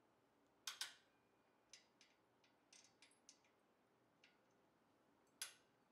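Light metallic clicks and clinks of a 19mm nut and its washers being worked off the motor-mount stud and handled. A sharp double click comes about a second in, then a scatter of fainter ticks, and another sharp click near the end.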